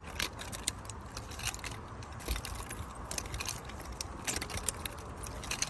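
Chain of a chain-linked nunchaku clinking and rattling in quick, irregular light clicks as the sticks are swung and spun.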